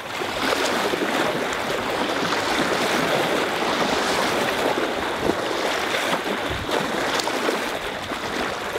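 Steady rushing, splashing water noise.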